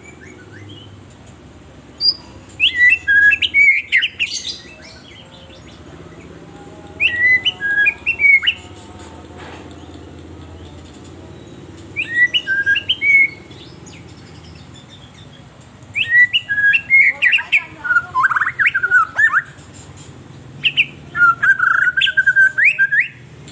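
White-rumped shama (murai batu) singing an agitated, fired-up song in five loud phrases of rapid, sliding whistled notes, a few seconds apart, over a steady low background hiss.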